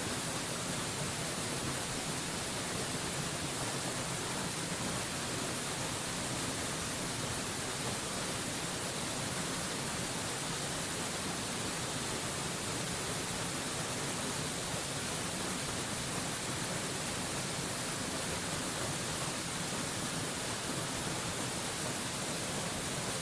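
Steady rushing of a mountain waterfall, an even hiss that never changes.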